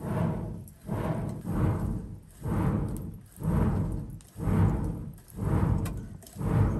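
Hand-spun clay one-way blower worked in strokes about once a second, each stroke a swelling whoosh and rumble as the fan spins up and runs down, blowing air into the charcoal forge.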